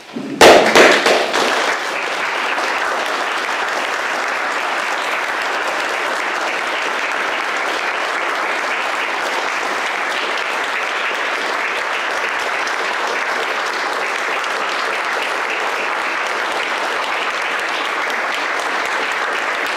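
Audience applauding. It breaks out suddenly and is loudest in the first second or two, then holds steady.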